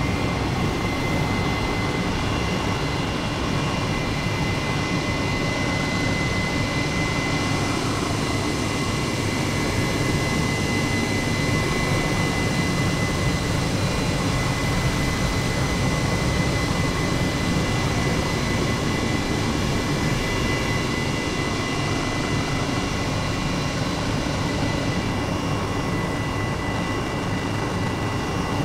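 Helicopter in flight: steady engine and rotor noise with a constant high whine over it.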